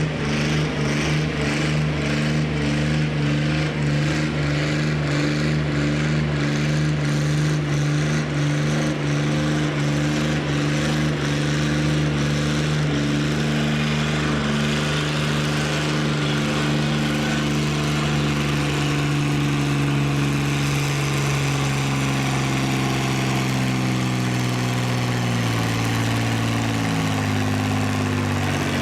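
Farm stock pulling tractor's diesel engine running hard and steady under load, its pitch dropping gradually over the last several seconds as the engine speed falls.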